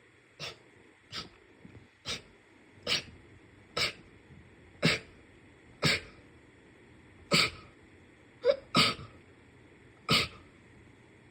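A fit of about eleven short, sharp sneezes, roughly one a second, mostly growing louder. Two come close together near the end.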